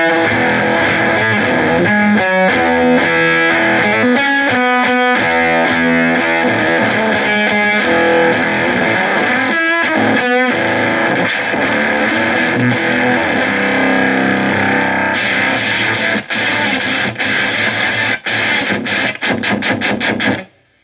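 Electric guitar, a Peavey T-60, played through a JHS Lizard Queen octave fuzz pedal with the octave all the way up, into a Laney AOR head and Marshall 1982b cabinet: distorted, fuzzed riffing. In the last few seconds it turns to short, choppy stabs, then cuts off just before the end.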